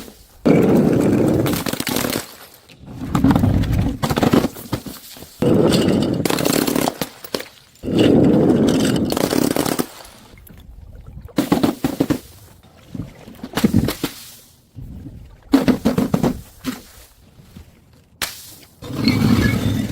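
A series of about eight bursts of rapid crackling and crunching impacts, each lasting a second or two with short pauses between: things being smashed and crushed.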